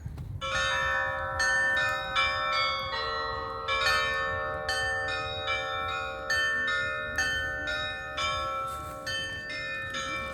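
Russian Orthodox church bells ringing, several bells of different pitch struck in a quick run from about half a second in, each note ringing on under the next strikes.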